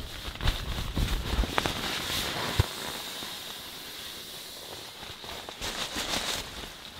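Inflatable sleeping pad's crinkly nylon rustling as it is handled and pressed by hand, with a few soft thumps in the first few seconds.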